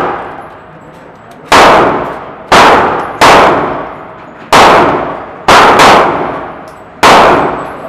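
AR-15 rifle firing seven single shots at uneven intervals, two of them in quick succession, each shot's loud crack ringing and dying away off the walls of an indoor range.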